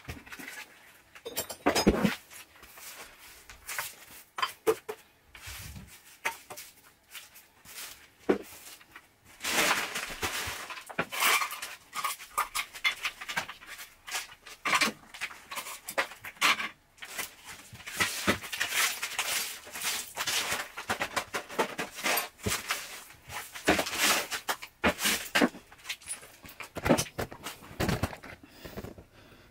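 Push broom sweeping dry debris across a hard kitchen floor in short, irregular strokes, with scattered bits clicking as they are pushed along.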